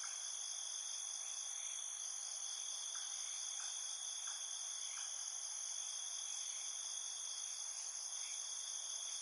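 Steady insect chorus, several high unbroken tones held evenly, with a few faint short chirps scattered through it.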